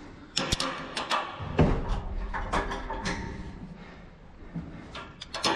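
Metal clanks, clicks and knocks from a turbine technician's climbing gear (carabiners and lanyard hooks) and the tower's hatch and fittings, as the gear is handled. There is a heavier knock about a second and a half in and a quick run of clinks near the end.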